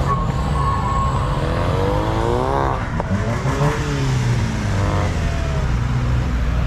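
Car engines revving: the pitch climbs and falls back several times over a steady low rumble of engines running.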